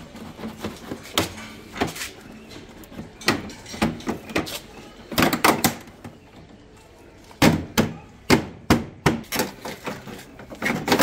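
Irregular clicks and knocks of the plastic body panels on an Ola S1 Pro electric scooter as they are handled and pried off their clips, with a quick cluster about five seconds in and sharper knocks a couple of seconds later.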